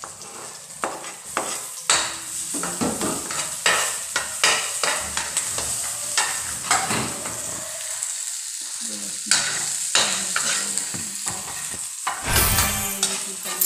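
Chopped onion and tomato sizzling in hot oil in a pan, stirred with a utensil that clicks and scrapes against the pan again and again, as the sauté base for mung bean stew. A louder rush comes near the end.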